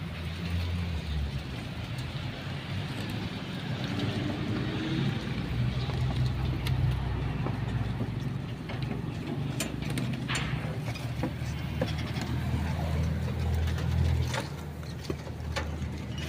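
A low, steady engine or motor running, with a few scattered clicks and knocks.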